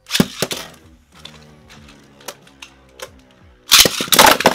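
A Beyblade Burst top is launched into a plastic stadium with a sharp clack just after the start. Two tops, Luinor L3 and Genesis Valtryek V3, then spin with a faint whirr and a few light ticks. Near the end they clash in a rapid run of loud clattering hits.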